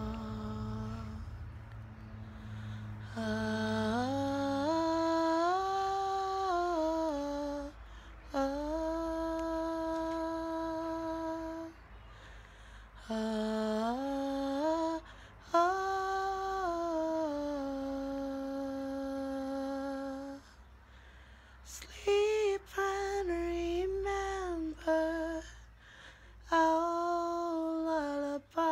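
A woman humming a slow lullaby tune without words: long held notes that step up and down, in phrases of a few seconds with short breaks between them.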